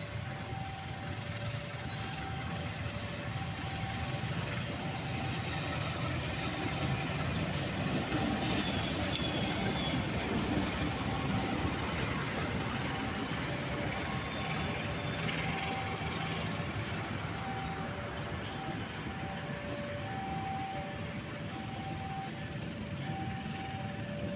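Diesel-hauled passenger train rolling past on the rails, its rumble and wheel noise loudest about midway. Throughout, a two-note electronic warning chime sounds, a high and a low note alternating steadily.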